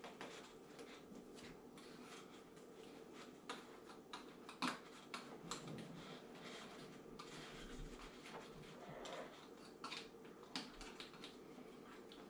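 Faint scratching and small clicks of a thin metal tool poking fibrous wick packing into the gap between two small tin cans, with a few sharper ticks of metal on tin.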